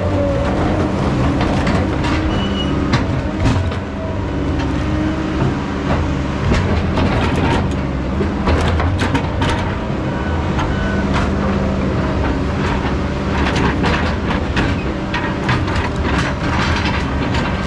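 Heavy logging machine's diesel engine running steadily, with repeated metallic clanks and knocks, thickest in the second half.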